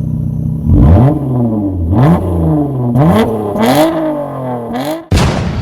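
Vehicle engine revved repeatedly, about five revs rising and falling in pitch, with a sudden loud burst about five seconds in.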